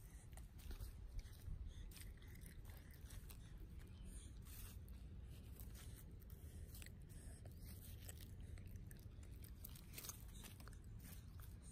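Faint rustling and scratchy clicks from a microphone rubbing against a monkey's fur, over a low steady rumble.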